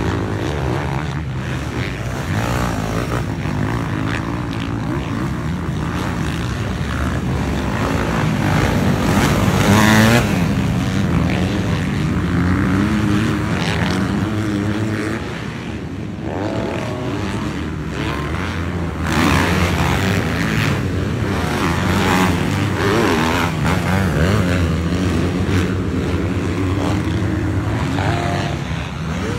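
Motocross dirt bike engines revving hard and backing off around the track, their pitch rising and falling as several bikes pass. Loudest about ten seconds in.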